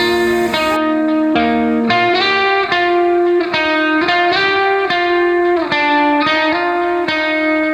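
Background music: a guitar playing a picked melody, note after note.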